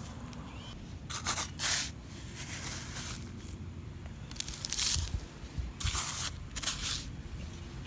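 Sand scraping and crunching in short bursts, about six of them, as toy trucks are pushed and dug through a sandbox. Wind rumbles on the microphone underneath.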